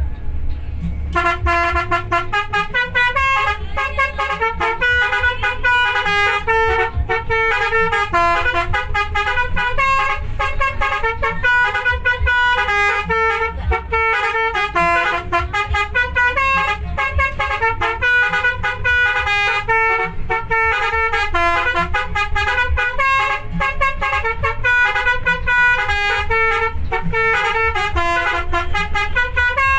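Bus telolet horn of the basuri type, its set of trumpets playing a fast stepping melody in several tones at once, over a steady low rumble from the vehicle.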